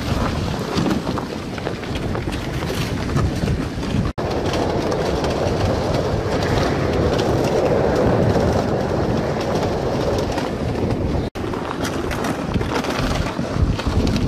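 Wind buffeting the microphone on open ice, with irregular crunching and scraping from movement across the frozen bay. The sound cuts out for an instant twice.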